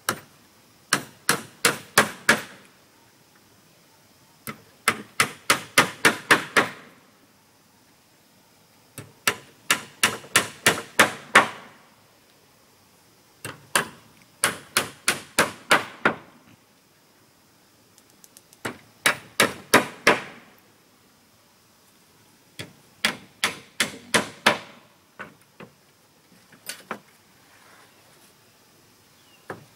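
Hammer blows on wood in six quick runs of about five to eight strikes each, a few seconds apart, with a few lighter knocks near the end.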